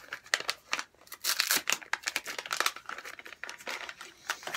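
A small brown paper envelope being torn open and handled: irregular tearing and crinkling of paper, loudest a little over a second in.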